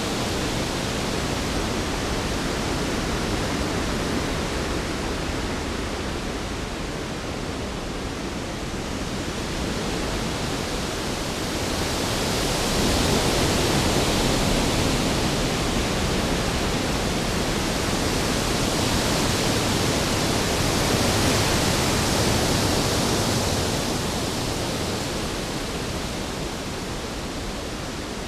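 Storm sound effect: a steady rushing noise of wind and rain that swells louder twice, once just before the middle and again a little later.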